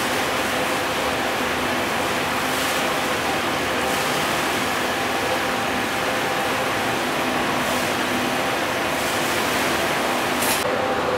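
Steady rushing noise with a faint, even hum underneath, from a river cruise ship lying in a concrete lock chamber with its machinery running and water moving around the hull.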